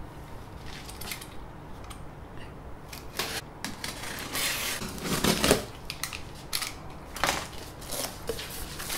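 A cardboard shipping box being opened: packing tape slit along the top and the stiff cardboard flaps pulled open, with scattered scrapes, rips and rustles, the loudest rip about halfway through.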